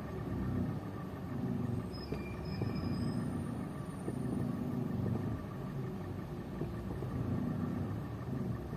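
Kia Rio third-generation (QB) engine idling with a low rumble that swells and dips about once a second, carrying an extraneous knocking, rattling vibration that the owner hears around 1000 and 700 rpm and cannot place.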